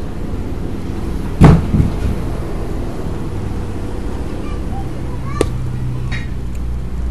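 A truck tyre on its steel wheel lands flat on the ground with one loud heavy bang about a second and a half in, followed by two lighter knocks; a short sharp click comes later. A steady low engine hum runs underneath.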